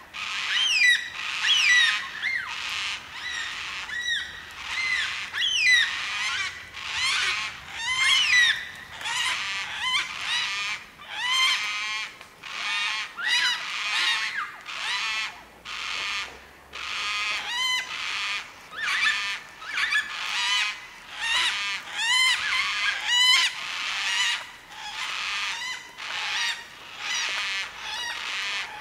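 A flock of white-tailed black cockatoos calling over and over, with many overlapping calls that rise and fall in pitch at about two a second.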